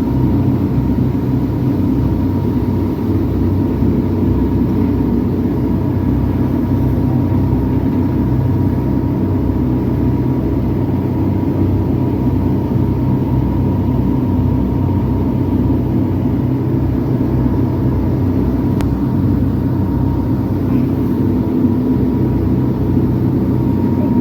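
Cruise boat's engines running steadily, heard on board as a loud, even drone with a faint high hum above it.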